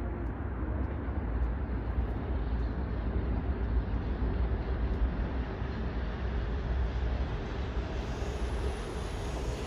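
Seoul Subway Line 2 new-model electric train running over an elevated viaduct: a steady rumble of wheels on rail, its hiss reaching higher as the train draws nearer.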